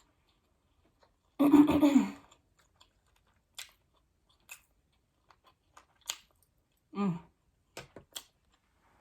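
A person chewing and crunching food close to the microphone, with small wet mouth clicks scattered throughout. Two short voiced sounds break in: a louder one about a second and a half in and a briefer one near seven seconds.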